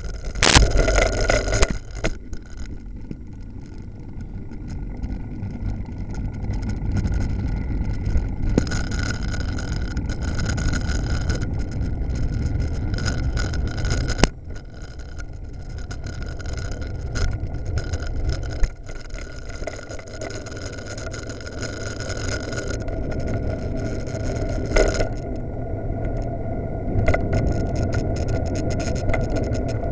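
Riding a bicycle with the camera mounted on it: steady wind and road rumble on the microphone, with a few sharp knocks from bumps.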